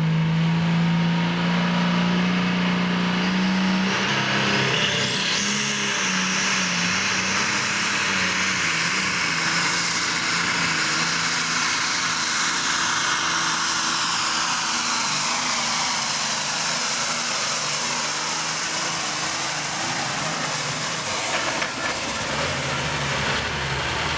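A John Deere pulling tractor's turbocharged diesel engine runs at full throttle while dragging a weight-transfer sled, with a high turbo whistle rising about five seconds in and holding over the engine roar. Near the end the throttle is cut and the engine drops back to idle.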